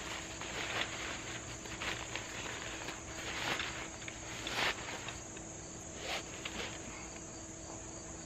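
Fabric carry bag rustling and scraping in irregular bursts as a folded camping chair is worked into it and the drawstring is pulled near the end. A steady high trill of insects runs underneath.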